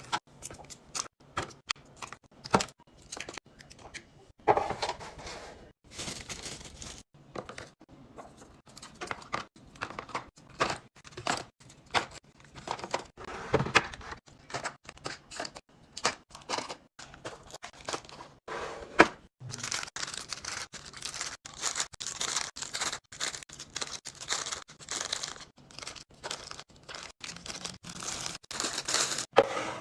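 Snack packets and plastic packaging crinkling and rustling, with many light clicks and knocks as snacks are handled and set into place; the rustling gets busier about two-thirds of the way through.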